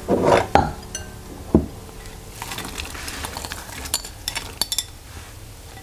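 Chopped vegetables tipped from a glass bowl into a stainless-steel pot of simmering water, with a short rush as they pour in and several light clinks of the glass bowl against the pot.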